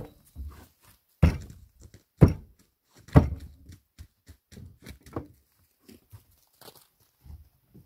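Three heavy knocks about a second apart, the first three seconds in, followed by a run of lighter, irregular knocks and clicks.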